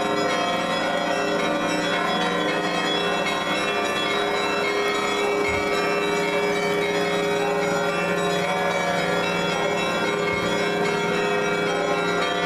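Orthodox church bells ringing: many bells sound together in a continuous, dense peal, their tones overlapping and sustained without a break.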